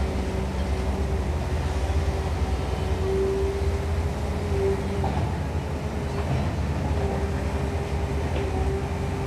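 Caterpillar long-reach excavator running under digging load: a steady low diesel rumble with a hydraulic whine that swells about a third of the way in and again near the end as the boom and bucket work through the mud.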